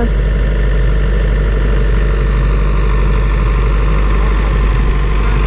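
Gehl skid-steer loader's engine idling steadily, a constant low hum.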